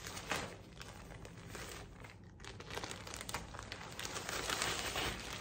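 Thin plastic clothing mailer bag crinkling and rustling as it is handled and opened, uneven and growing louder toward the end.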